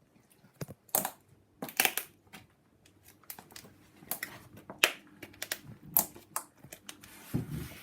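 Dry hazelnut shells cracking and crunching as they are crushed against a hard floor, in irregular sharp cracks, the loudest about one, two, five and six seconds in.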